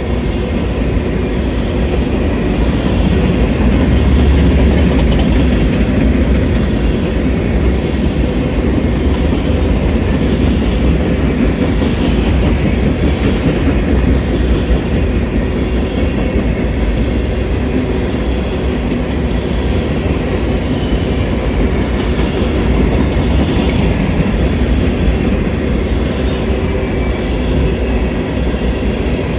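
Freight train covered hopper cars rolling past at close range: a steady rolling rumble with wheel clatter on the rails.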